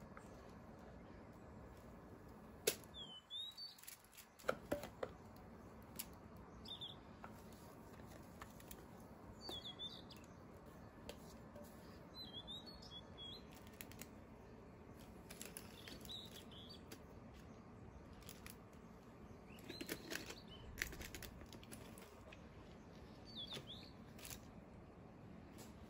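Faint handling sounds of a silicone spatula scraping sponge batter out of a glass mixing bowl, with short squeaks every few seconds and soft clicks and taps, a sharper click about three seconds in.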